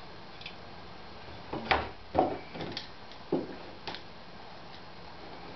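A few sharp knocks and clacks of hard objects handled on a wooden workbench, the loudest about two seconds in.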